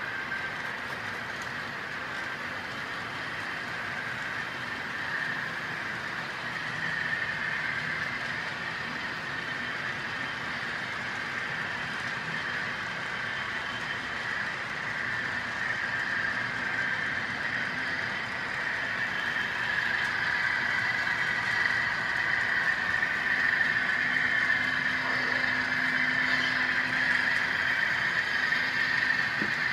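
HO scale model grain train rolling along the track, a steady rolling clatter of hopper car wheels on the rails that grows louder over the second half.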